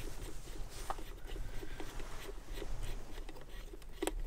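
Faint scattered clicks and rustling of hands handling small equipment, with a sharper click about a second in and another near the end, over a low steady hum.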